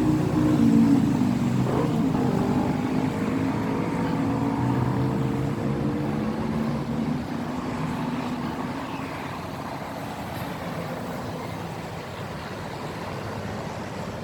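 A motor vehicle engine humming, its pitch sinking slowly as it fades, like a vehicle moving away.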